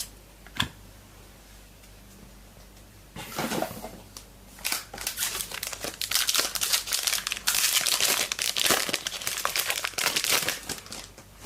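A trading-card pack wrapper being torn open and crinkled by hand: a short rip about three seconds in, then several seconds of dense, irregular crackling as the wrapper is worked open.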